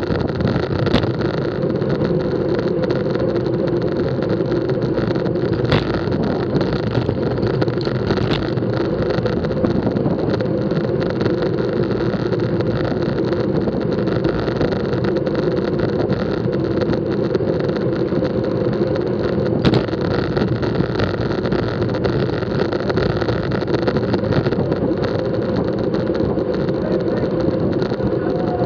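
Steady rush of wind and road rumble on a bicycle-mounted action camera riding at race speed in a bunch of cyclists, with a couple of sharp clicks.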